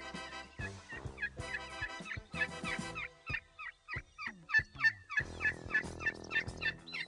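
Background music for the first few seconds, then wild turkeys calling in a quick series of short, falling notes that carry on to the end over the music.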